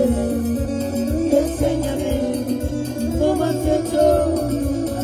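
A cumbia band playing, with a steady pulsing bass beat under melodic lead lines.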